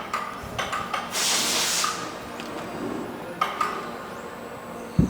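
Metal parts of a screw pump being handled: scattered clinks and knocks, a hiss lasting under a second starting about a second in, and a sharp thump near the end.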